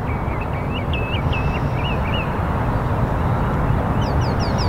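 Birds singing over a steady low outdoor rumble: a twittering warble in the first two seconds, then a quick run of short falling chirps, about four a second, near the end.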